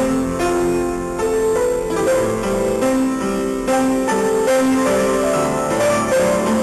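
Electronic keyboard played with a piano sound: a flowing melody of held notes over chords.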